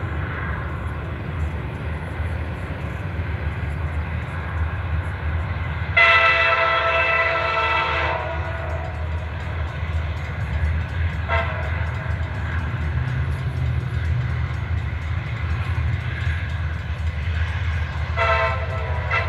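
Horn of a CSX SD70MAC diesel locomotive sounding for a grade crossing: a long blast about six seconds in, a short one around eleven seconds, and another long one starting near the end. Under it runs a steady low rumble.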